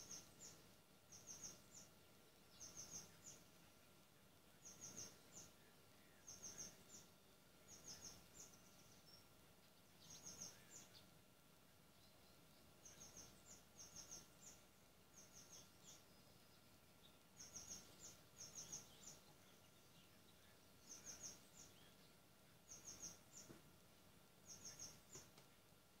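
A songbird singing faintly: quick clusters of three or four high chirps, repeated every second or two, with a couple of short pauses.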